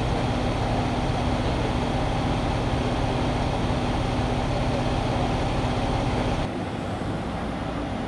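Steady mechanical hum of the parked fire-rescue truck idling, with a constant droning tone. About six and a half seconds in, it drops suddenly to a quieter, lower hum.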